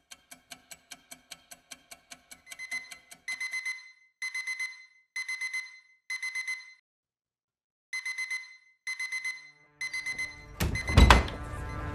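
Fast ticking, about five ticks a second, gives way to a phone alarm beeping in rapid short groups about once a second, with a brief pause midway. Near the end the beeping stops and a loud thump with a rush of noise takes over.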